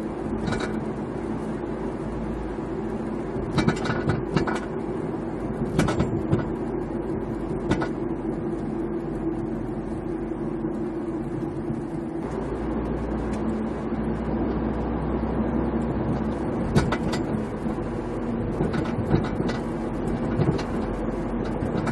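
VW Scirocco 1.4 TSI driving over an uneven road: a steady engine and road drone, broken by sharp rattling knocks from the rear in clusters about 4, 6 and 8 seconds in and again near the end. The clatter over small bumps is taken by the owner for something loose at the right rear axle, with the tailgate and exhaust ruled out.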